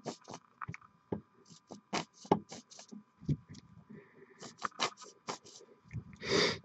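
Scattered small clicks and taps from working on a plastic paint dropper bottle, its clogged nozzle being cleared with a paper clip. A louder rushing noise of about half a second comes near the end.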